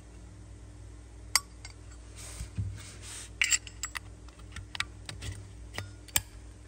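Zippo lighter being handled: scattered metallic clicks and clinks, with a short scraping rub a little over two seconds in, like the insert sliding against the case.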